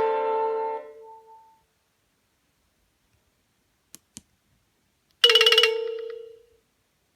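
Nokia Asha 302 ringtone ending, its melody fading out in the first second and a half. Two faint clicks follow about four seconds in, then at about five seconds a single bright chime-like tone that rings and fades away over about a second.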